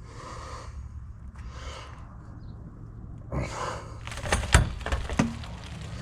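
Tools and metal parts being handled: rustling, then a few sharp metallic knocks and clinks about four to five seconds in, the loudest around four and a half seconds, over a steady low hum.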